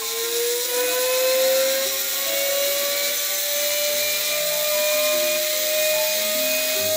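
Rotary tool with a fine burr carving engraving into a silver knife handle: a steady motor whine that rises in pitch over the first few seconds and then holds, over the hiss of the burr cutting the metal.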